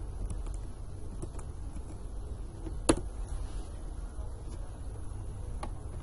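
Computer keyboard keystrokes: a few faint key clicks and one sharp, louder key press about three seconds in, as a command is entered, over a steady low hum from the microphone.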